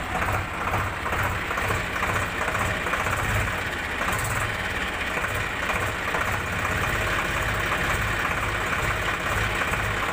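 Engine idling steadily with a regular low chugging, a few beats a second.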